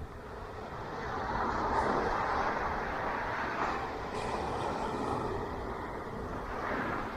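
Ocean waves breaking and washing onto a beach: a rush of surf that swells about a second in, holds, and eases off near the end.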